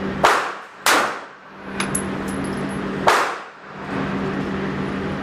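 Three shots from a 9mm handgun: two about half a second apart, then a third about two seconds later, over a steady background hum.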